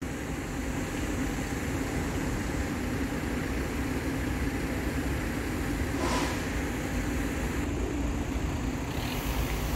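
Mercedes-Benz Citaro city bus's diesel engine running steadily as the bus creeps forward, with a brief hiss about six seconds in.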